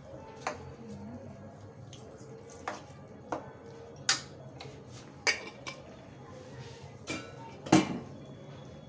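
A metal spoon stirring a watery onion-tomato masala in a stainless steel kadhai, clinking against the pan about eight times at uneven intervals, the loudest clink near the end.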